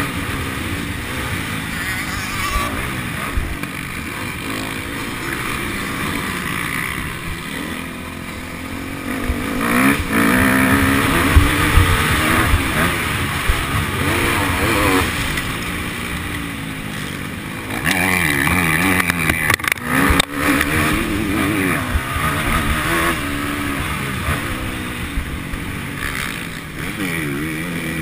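Motocross bike engine heard from onboard, its pitch rising and falling as it revs up and drops back between corners, louder about ten seconds in and again about eighteen seconds in.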